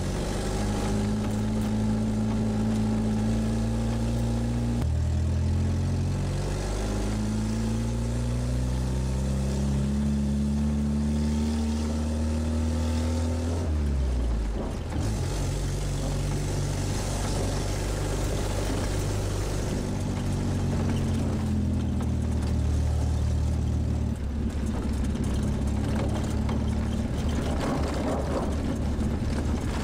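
Škoda 440 Spartak's four-cylinder petrol engine pulling the car along, heard from inside the cabin. Its pitch climbs as it accelerates and drops sharply about five seconds in at a gear change, then climbs again. Around fourteen seconds in it falls away and the engine runs on at a lower, steadier pitch.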